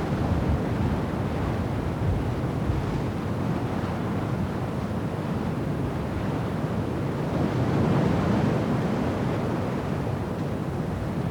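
Storm wind buffeting the microphone over rough, breaking sea: a steady low rushing noise that swells a little about eight seconds in.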